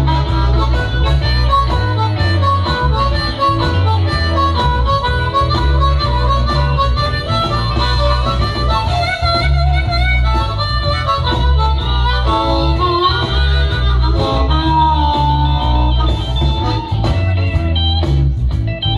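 Blues harmonica played cupped against a handheld microphone, with bending, wavering notes, over a blues backing with a heavy pulsing bass line. The harmonica breaks off near the end.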